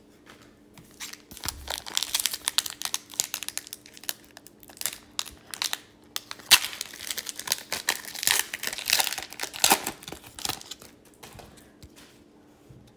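A 2020-21 Upper Deck Series 2 hockey card pack being torn open by hand, its foil wrapper crinkling and tearing in a dense run of crackles that dies away near the end.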